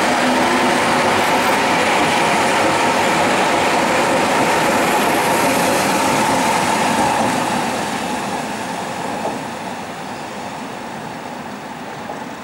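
A Berlin U-Bahn small-profile train pulls out of the station and runs past. Its wheel and running noise is loud and steady for about seven seconds, then fades as the train draws away.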